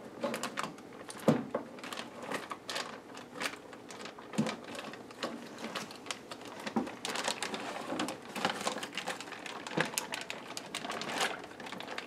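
Plastic sous vide cooking bag crinkling and rustling, with irregular clicks of kitchen tongs, as a cooked steak is worked out of the bag.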